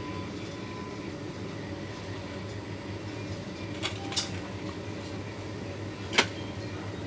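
Steady background hum of a shop's machinery and air handling, broken by a few sharp clicks, two close together about four seconds in and a louder one about six seconds in.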